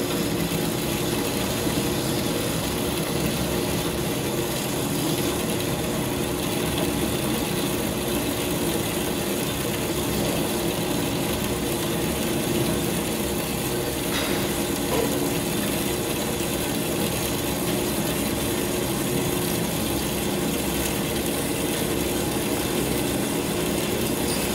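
Horizontal metal-cutting band saw running steadily, its blade cutting through a metal tube near the end of the cut, with its coolant pump running.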